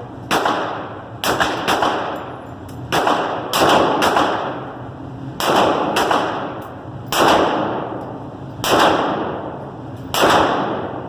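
Carbine gunshots fired in a string, about a dozen at uneven spacing of half a second to a second and a half. Each shot is a sharp crack that rings out briefly.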